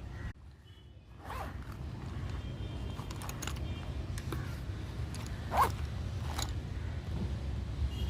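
Brush or pencil strokes scratching across paper: several short scratchy strokes, the loudest a little past halfway, over a steady low hum.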